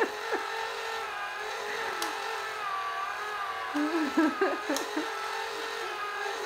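Small battery motor of a Hot Wheels Ultimate Garage toy playset running with a steady, slightly wavering whir. Two sharp plastic clicks come about two and five seconds in.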